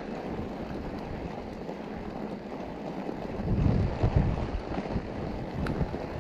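Mountain bike riding over snow: a steady rushing noise with wind buffeting the microphone, gusting strongest a little past halfway, and a single sharp tick near the end.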